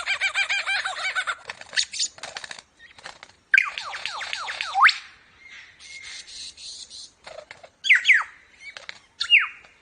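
Lyrebird singing: a rapid chattering warble, then about a second and a half of quick falling whistled notes that ends in a sharp rising whistle, followed by short phrases of falling notes with pauses between them.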